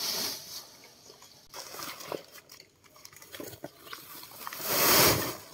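Sweet potatoes tumbling out of a woven plastic sack onto concrete: a rush of knocking and rustling, loudest about five seconds in, with scattered single knocks before it.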